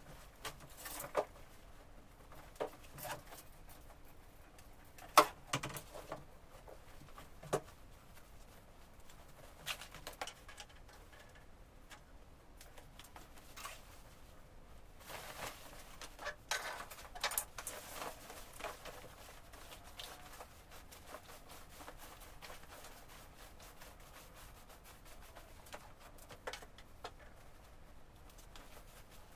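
Scattered light knocks and clicks of a small wooden decor ladder and its packaging being handled, with the sharpest knock about five seconds in and a busier run of handling noises a little past the middle.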